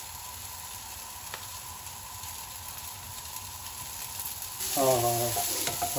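Diced vegetables stir-frying in a hot wok over a gas flame, sizzling steadily. The sizzle grows louder and hissier about four and a half seconds in.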